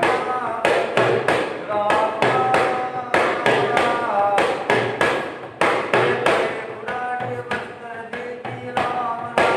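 Small double-headed hand drum struck in a steady rhythm, about two to three strokes a second, with men's voices chanting over it: ritual drumming for a jhada, a folk healing for a poisonous insect bite.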